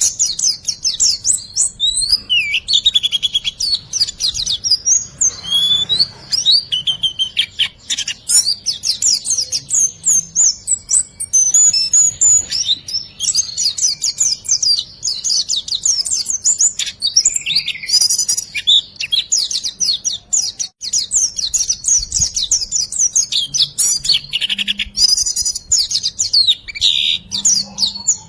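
A songbird singing a fast, continuous stream of high chirps, trills and quick up-and-down whistles without a break, as used for a birdsong training track.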